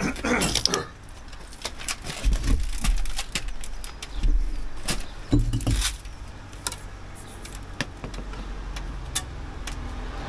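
Brick-trowel work in an opened-up wall: a string of sharp taps, clinks and scrapes as a steel trowel and bricks knock against brick and mortar.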